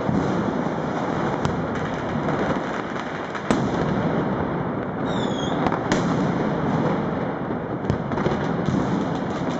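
New Year's street fireworks and firecrackers crackling densely without a break, with several sharp bangs standing out, the loudest about three and a half seconds in, and a brief falling whistle a little past halfway.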